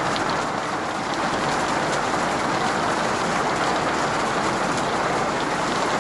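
Heavy rain falling on a motorhome's roof and windows, heard from inside the cabin: a steady dense hiss with scattered taps of drops.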